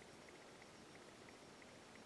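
Near silence: faint room tone with very faint, fairly regular ticks, roughly three a second.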